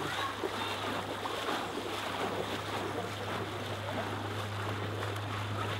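Steady noise of wind and lake water at the shore, with a steady low hum underneath and faint, indistinct voices in the distance.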